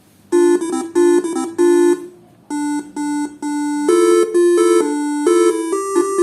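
Telolet bus horn set run by a Faniatech R3 module playing one of its preset tunes: a quick string of short horn notes starting a moment in, some sounded as two-note chords, with a long held note near the end.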